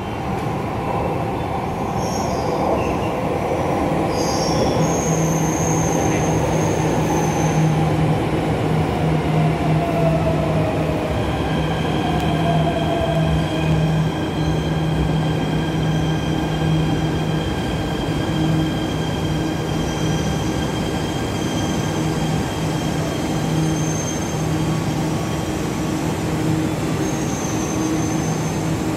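MRT Jakarta metro train pulling into the platform and stopping: a steady rumble with short high wheel and brake squeals, a falling whine as it slows, then the stopped train's steady hum.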